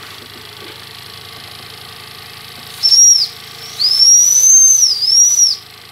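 Steam whistle on a Jensen #65 toy steam engine's boiler blown twice: a short high toot, then a longer blast of about two seconds whose pitch rises, dips and rises again. Beneath it the small engine runs steadily and quietly.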